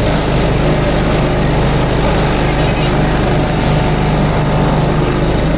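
Engine-driven wood chipper running steadily.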